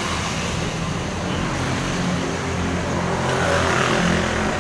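Road traffic: a motor vehicle engine running steady with road noise, swelling slightly toward the end as it passes.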